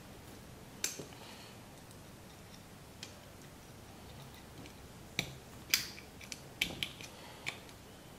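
Small metal clicks and taps as the springs and pins of a LOKKA locking differential are worked into the differential carrier by hand. A couple of isolated clicks come in the first half, then a run of about six sharper clicks in the second half.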